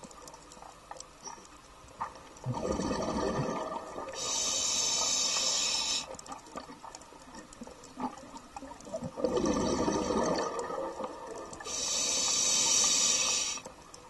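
Diver breathing through an open-circuit scuba regulator underwater: a burble of exhaled bubbles, then a steady hissing inhale through the demand valve, twice over.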